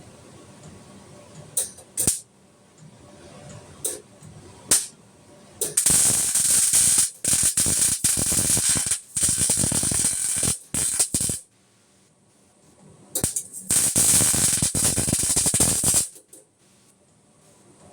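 Arc welding: a few short crackling tack strikes, then two longer welds of steady dense crackling, the first about five seconds long and the second about two and a half.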